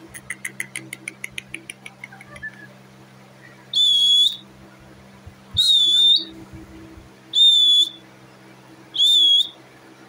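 Rose-ringed (Indian ringneck) parakeet whistling four times, each a loud, steady high whistle about half a second long, coming every couple of seconds. Before the whistles, a quick run of soft clicks fills the first two seconds or so.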